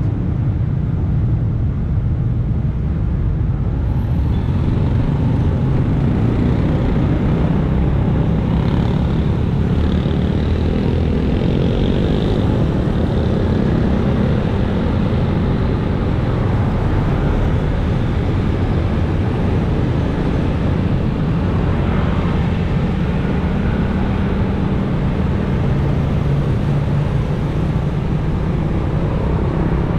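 Motor scooter and motorcycle traffic running close by on a city street, heard from a moving bicycle, under a steady low wind rumble on the camera microphone.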